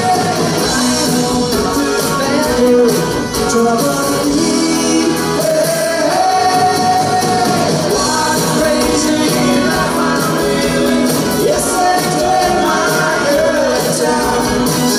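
Live pop-rock band playing a song, a lead singer holding long sung notes over guitars, piano and drums, heard through the hall's sound system.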